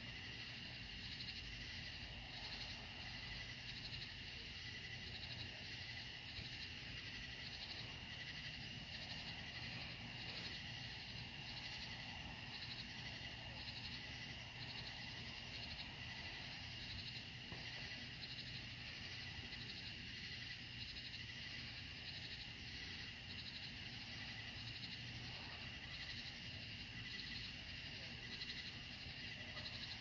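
Chorus of night insects trilling steadily, faint and high-pitched, with no firework bangs.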